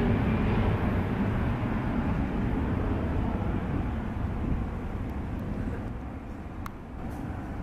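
Bombardier Global 7500 business jet's twin turbofans rumbling as it climbs away after take-off, the low roar fading steadily.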